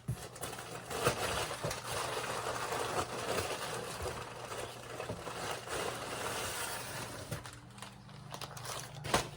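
Packaging being handled and pulled at by hand, a steady crinkling and scraping with occasional sharper crackles, easing off after about seven seconds.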